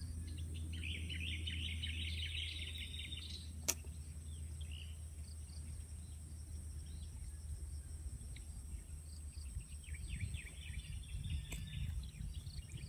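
Birds chattering in two spells, about a second in and again near the end, over a low steady rumble, with one sharp click a little under four seconds in.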